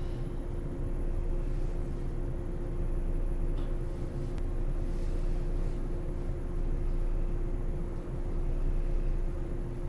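Inside a JR 107 series electric train car standing still: a steady hum from the on-board equipment with two constant tones over a low rumble, and a couple of faint clicks in the middle.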